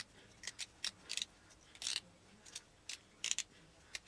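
Irregular sharp metallic clicks and ticks, about a dozen, some in quick pairs, from tools and small metal parts being worked while a skateboard wheel and its bearings are taken off the truck.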